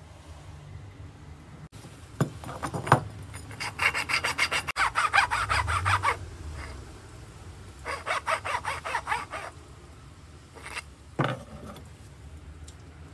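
A hand tool worked rapidly back and forth on wood, about five or six strokes a second, in two bursts. A few single wooden knocks come before and after.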